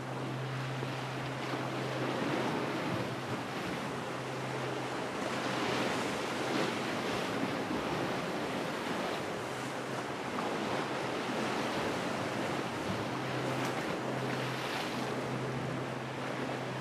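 Sea surf washing on the rocks below, with wind on the microphone and a steady low drone from a passing motorboat's engine that fades for a few seconds in the middle.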